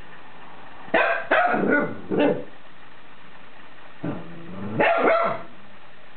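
Cavalier King Charles Spaniel puppy barking in two bouts: a quick run of about four barks about a second in, then a lower drawn-out call running into two or three more barks about five seconds in. The puppy is barking in alarm at a pair of furry ape slippers that it is scared of.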